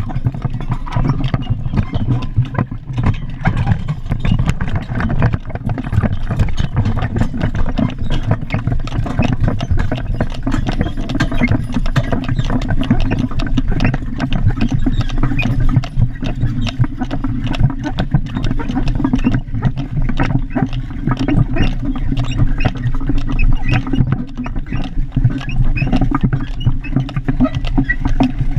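Horse-drawn wagon rolling along a paved street: the wheels give a steady low rumble, with dense clattering and rattling of the wagon and the horse's hooves clopping on the asphalt.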